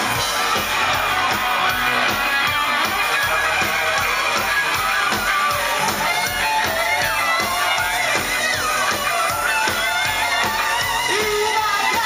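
Live rock band playing loud and steady on a club stage: electric guitar and drums with a male singer, recorded from within the audience.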